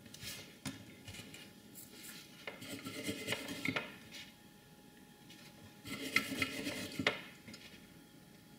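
Small metal tools being handled off to the side of the bench: clinks and scrapes, with a few clicks at the start and two longer clusters of clinking, around three and six seconds in.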